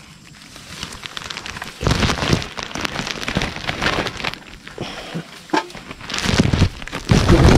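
Tall dry grass and leaves rustling and crackling as they brush against the camera moving through them, with low handling thumps; it grows louder about two seconds in and is loudest near the end.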